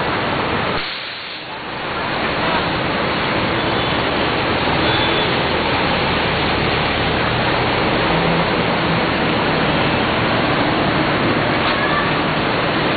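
Fast-flowing floodwater rushing down a street with a steady, dense water noise, and a jeepney wading through it, churning up a bow wave. The noise drops briefly about a second in.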